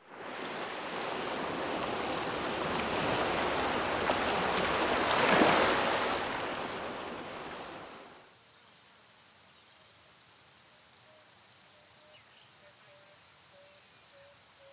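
Sea surf washing over shore rocks, swelling to a peak about halfway through and then fading away. It gives way to a steady high chirping of insects, with a faint repeated note beneath it.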